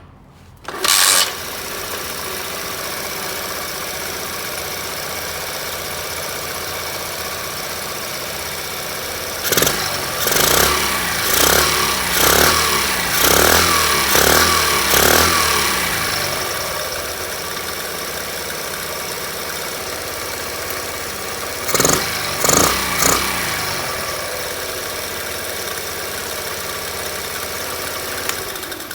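Small Chinese-made single-cylinder four-stroke engine in a Honda Monkey minibike starting about a second in and settling to an idle, with its cam chain tensioner pushrod rubber freshly replaced. It is revved about six times in a row midway, then given three quick blips, and returns to idle each time.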